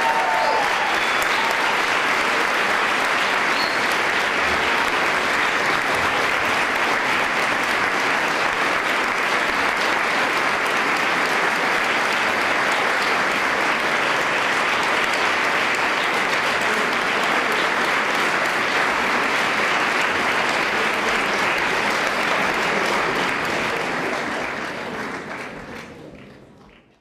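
Theatre audience applauding steadily, a dense unbroken clapping that fades out near the end.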